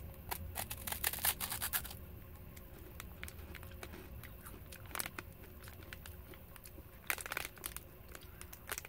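Crunchy bites into an Umaibo puffed-corn snack stick, a run of crisp crackles over the first couple of seconds. About seven seconds in, a short burst of crackling from a plastic snack wrapper being handled.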